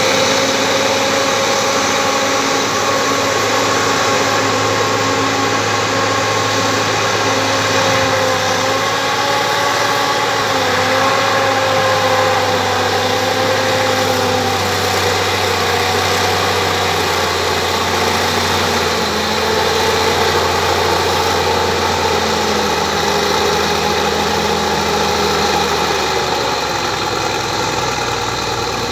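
Bulldozer's diesel engine running steadily under work, its note wavering and dropping a little about two-thirds through, then shifting again near the end.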